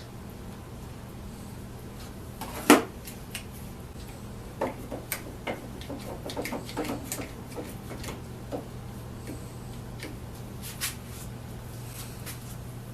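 Objects being handled on a workbench: one sharp knock about three seconds in, then a scatter of lighter clicks and knocks, over a steady low hum.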